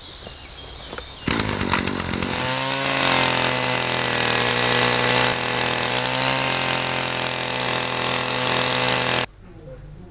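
Petrol brush cutter's small engine starting about a second in, then revving up and running at a steady high speed. The sound cuts off suddenly near the end.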